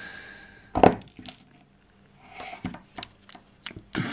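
Small handling clicks and taps: one sharp click about a second in, then several lighter clicks, as the back-lid screws of a Casio calculator watch are taken out and the watch is set down on a cutting mat.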